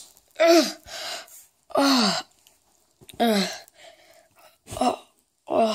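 A person's voice making short wordless vocal sounds, five in a row, each sliding down in pitch.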